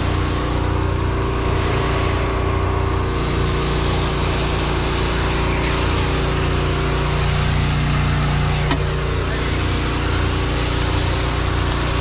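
Fire hose nozzle spraying water onto the hot metal of a burned Bobcat skid steer, a steady hiss of spray and steam. Under it, an engine drones steadily.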